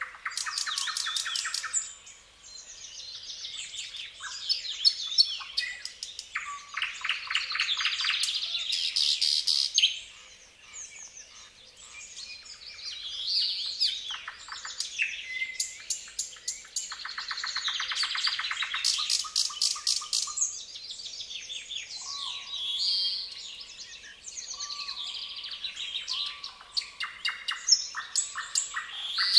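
Several songbirds singing at once in a wild area, their songs overlapping: fast rattling trills, chirps and short whistled notes.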